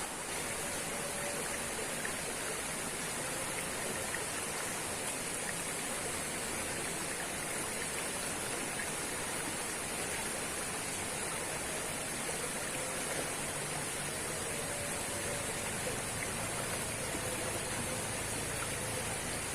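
Waterfall and rushing stream water, a steady, even rush of white noise.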